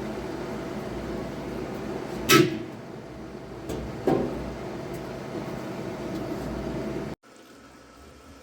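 Portable milker's vacuum pump running with a steady hum, with two sharp knocks about two and four seconds in. The hum cuts off abruptly near the end.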